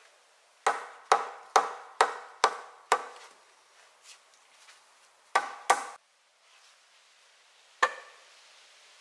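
Sharp blows of a tool on wood, each with a short ringing tail. Six strikes come in quick succession at about two a second, then two close together a couple of seconds later, and a single blow near the end.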